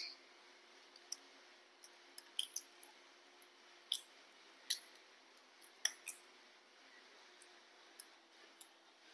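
Faint, sharp clicks and cracks, about a dozen at irregular intervals, as baby macaques crack sunflower seeds in their teeth and pick at seeds on their plates.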